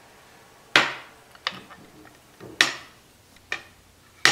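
Metal clanging as the large bolt is worked into a rifle's wooden stock to hold the barrel: about five sharp, separate knocks, the loudest about a second in and just past the middle.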